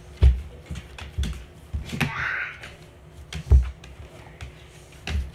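Irregular thumps and knocks from a child moving about and grappling with a dog right next to the phone, two of them loud, with a short rustle about two seconds in.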